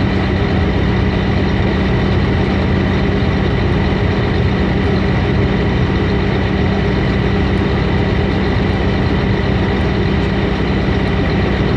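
Heavy diesel engine idling steadily, with no change in speed.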